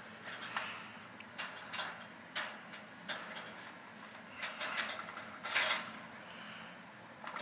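Metal wire dog kennel being handled and unfolded: irregular clicks, clinks and light knocks from its wire panels and latches, the loudest knock about five and a half seconds in.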